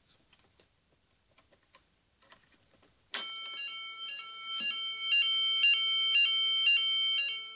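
Fire alarm sounder set to its French fire tone, set off with the test key. After a few faint clicks, it starts abruptly about three seconds in and sounds a high tone that alternates between two pitches roughly twice a second.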